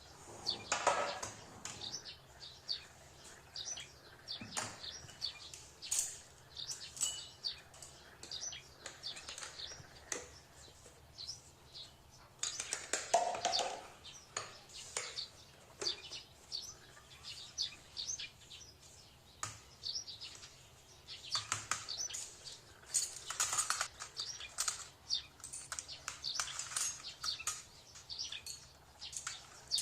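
Small birds chirping and tweeting over and over in short high calls, with a few light knocks and clinks of kitchen utensils.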